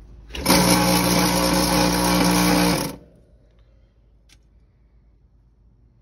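Heat pump compressor energized: a steady mechanical hum starts about half a second in, runs for about two and a half seconds and cuts off suddenly. It is the sign of a compressor locking up inside, which the technician puts down to springs or a bearing: it pulls high amps on start and then shuts off although its windings test fine.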